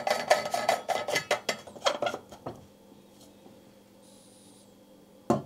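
Metal clinks, taps and scrapes of a stainless-steel vacuum flask and its lid being handled, a quick run of them over the first two and a half seconds, then one sharp knock near the end.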